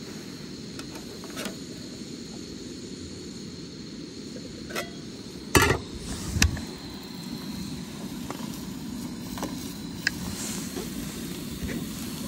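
Metal camping pots and lids being handled: a few sharp clanks, the loudest two about halfway through, over a steady low rumble.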